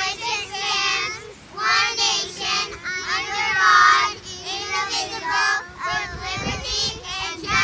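A child singing, the phrases broken by short pauses.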